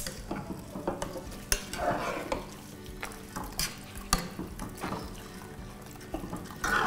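Boiled water pouring into a pot of oil-coated rice, sizzling as it hits the hot pot, while a silicone spatula stirs and scrapes the rice. There are a few light knocks of the spatula against the pot.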